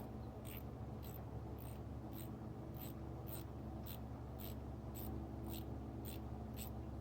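Ratchet with a spark plug socket being swung back and forth to back out a loosened spark plug. It makes a short ratcheting rasp on each return stroke, about two a second and evenly spaced, over a steady low shop hum.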